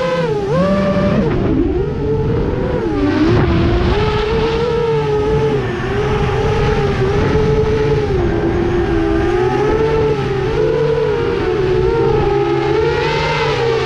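FPV quadcopter's brushless motors whining, the pitch rising and falling constantly as the throttle changes.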